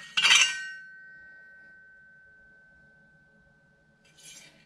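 Steel twin-disc clutch parts clank together once, leaving a clear metallic ring that fades slowly over about four seconds. A softer clink comes near the end.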